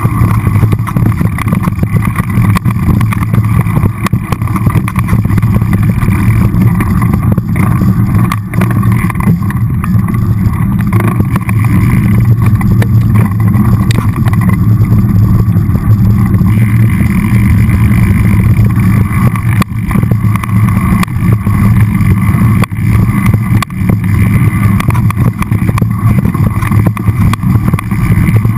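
Mountain bike rolling downhill on a rocky dirt trail: a loud, steady, muffled rumble of tyres and frame, broken by many brief knocks as it goes over rocks and bumps.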